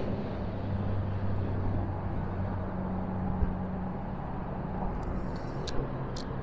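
Steady low engine drone with a constant hum over a wash of noise, with two sharp clicks near the end.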